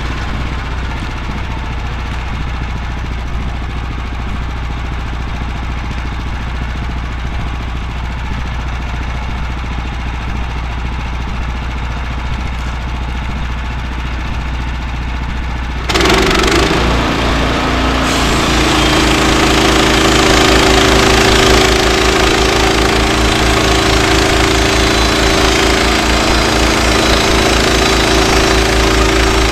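Woodland Mills HM126 band sawmill's gas engine idling, then about halfway through throttled up with the band blade engaged, running steadily under load as the blade cuts along the log.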